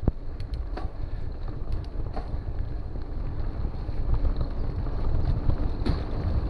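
Wind buffeting the microphone of a camera on a mountain bike ridden fast over a grassy trail, with a low rumble that grows a little louder as the bike picks up speed. A few sharp clicks from the bike rattling over bumps come at the start, about a second in, about two seconds in and near the end.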